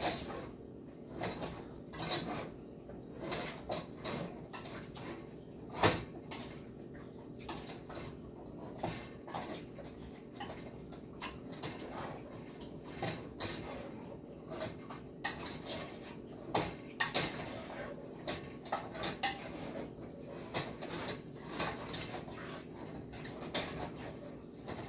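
Irregular clinks and knocks of a bowl and dishes as seasoned catfish pieces are mixed by hand, over a steady hum.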